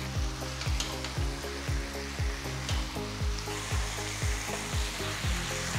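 Chicken pieces sizzling as they fry in oil and onion-tomato masala in a pan while being stirred with a wooden spatula, under background music with a steady beat.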